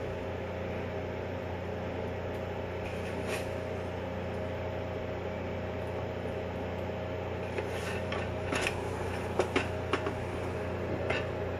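Steady hum of a kitchen appliance fan with several fixed tones. A few light clicks and scrapes of a spoon filling a bell pepper with turkey stuffing sit on top, most of them in the second half.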